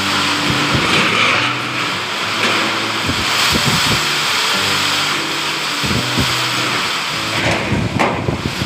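Storm wind and heavy rain making a dense, steady hiss, with gusts buffeting the microphone in low thumps. Background music with low held notes plays under it.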